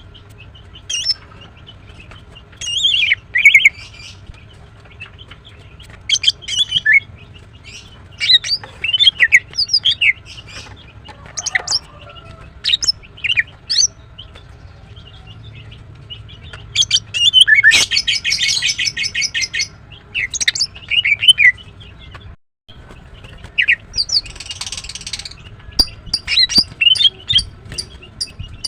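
Female greater green leafbird (Chloropsis sonnerati) calling: quick, high chirps and whistled notes in irregular bursts, with a fast rattling trill a little past the middle and another shorter one near the end.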